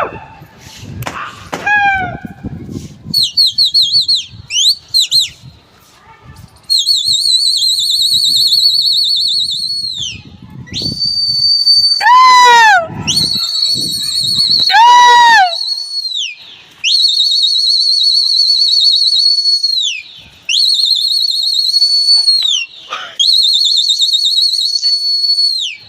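A pigeon fancier whistling to his flying flock: a series of long, high, trilling whistle blasts of several seconds each, with short chirps early on and two loud falling whistles about halfway through.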